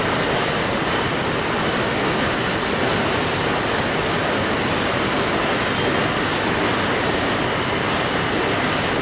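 Multi-wire straightening machine for staple wire running: a steady, dense mechanical rattle and clatter that does not change.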